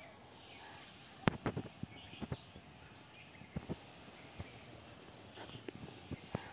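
Scattered light knocks and taps from a wire-framed landing net being handled on a paved pond edge, in a quick cluster about a second in and a few more later.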